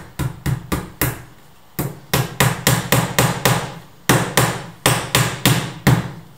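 Hammer blows on a door, about four a second in three quick runs with short pauses between, each blow ringing briefly.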